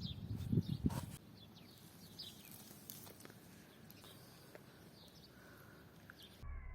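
A few dull thumps in the first second, then quiet outdoor ambience with faint, short bird chirps. Near the end the sound cuts to a steady low hum.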